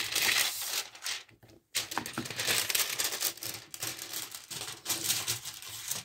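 Packaging crinkling and rustling in irregular handfuls as a brochure is unwrapped by hand, with a short pause about a second and a half in.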